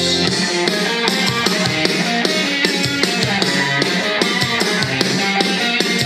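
Background music: a steady drum-kit beat comes in just after the start, over held chords.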